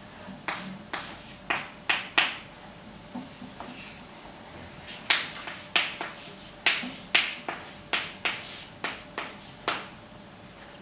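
Chalk clicking against a blackboard as figures are written: a string of sharp taps, about five in the first two seconds, then a quicker run of about a dozen from about five seconds in.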